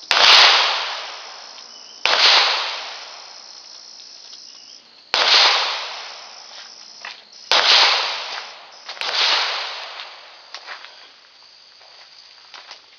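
Five gunshots at uneven spacing over about nine seconds, each sharp crack followed by a long fading tail, then a few faint clicks near the end.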